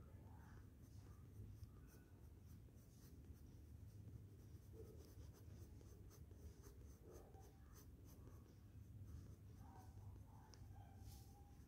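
Faint, irregular scratching of a black colored pencil on drawing paper in short strokes as it traces the edges of rose petals, over a low steady hum.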